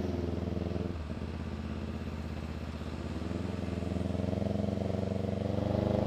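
CFMoto 400NK's 400cc parallel-twin engine running on the move through an SC-Project slip-on muffler with no silencer, a loud open-pipe exhaust note. It eases off about a second in and picks up again about three seconds in.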